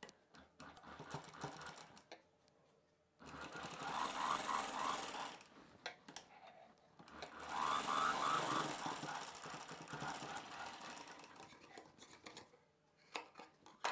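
A black domestic straight-stitch sewing machine runs in two stretches, one from about three to five seconds in and a longer one from about seven to twelve seconds in, sewing the shoulder seam that joins the dress's front and back pieces. Between the runs there are a few small clicks and rustles as the fabric is handled.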